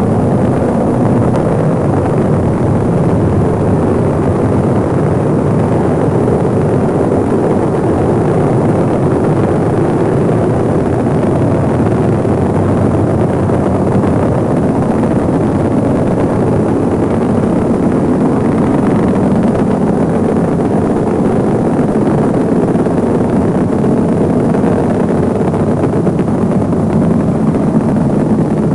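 Steady noise of a rocket's engines during launch and ascent.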